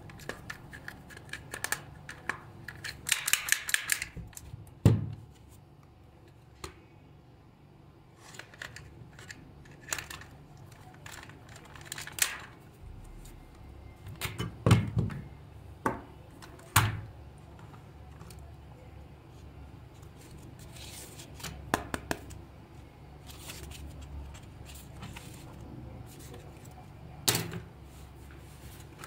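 Plastic toy car being handled and taken apart by hand: scattered clicks, rattles and knocks of plastic parts, with small screws and tools set down. A quick run of clicks comes about three seconds in, and a few louder knocks follow through the rest.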